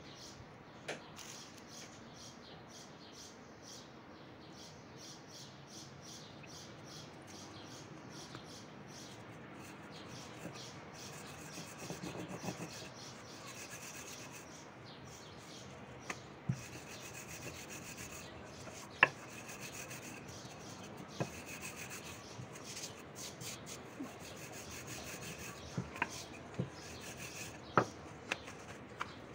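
Hands kneading dough in a bowl: a steady, rhythmic rubbing with a few sharp knocks, mostly in the second half.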